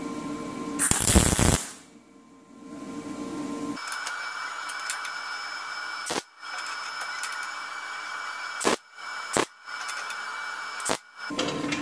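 MIG welder tacking a hex nut onto a steel threaded rod: a short, loud burst about a second in, then a steady hiss that cuts out briefly several times near the end.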